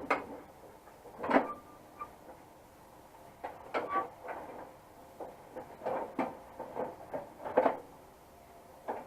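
Door lock and latch assembly with its rods knocking and clattering against the sheet-metal inner shell of a pickup door as it is worked up into place, in scattered groups of sharp knocks.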